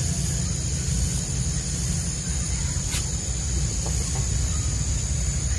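Rural ambience: a steady high-pitched insect drone over a constant low rumble, with a single sharp click about three seconds in.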